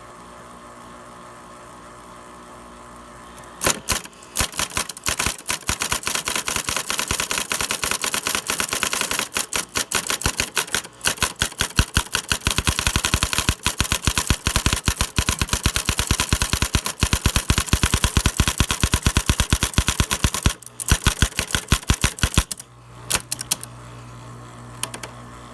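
Electric typewriter typing rapidly onto an iPhone 4S, its type striking the phone in a fast, continuous run of sharp clacks, several a second. The clacking starts a few seconds in and stops a few seconds before the end, with a low steady hum around it.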